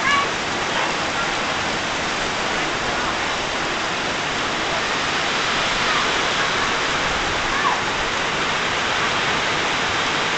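Heavy tropical monsoon rain pouring down and drumming on the ground and foliage, a dense, steady hiss.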